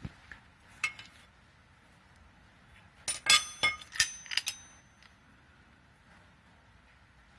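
Small metal parts and tools clinking against each other: a couple of light clicks, then a quick run of sharp, ringing metallic clinks from about three seconds in.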